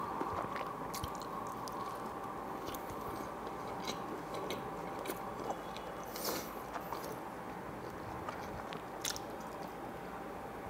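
Close-miked chewing of a slice of wild mushroom truffle oil pizza: wet mouth clicks and soft crackles, with another bite taken near the end. A ceiling fan runs steadily underneath.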